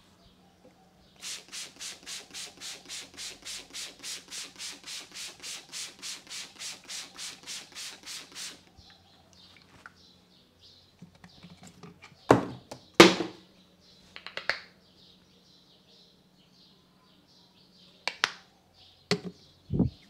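Hands rubbing rhythmically over the head in a barber's head massage, about three strokes a second for some seven seconds. Later come several loud, sharp slaps, two of them close together in the middle.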